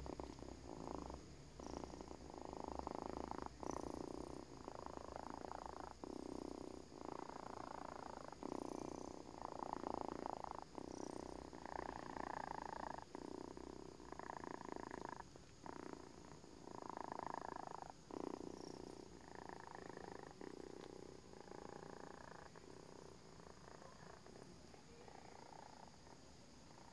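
A sleeping pet snoring like an old person: one snore per breath, about one every one and a half to two seconds, fading over the last several seconds.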